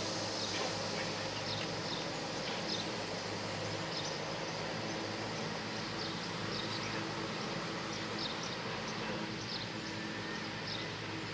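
Outdoor ambience: a steady low hum with short, high chirps repeating every second or so.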